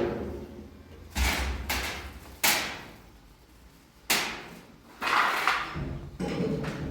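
A series of about six sharp knocks and bangs at irregular intervals, each ringing briefly, from cabinet parts or tools being handled and set in place during kitchen cabinet installation. Near the end there is a low rumbling, scraping noise.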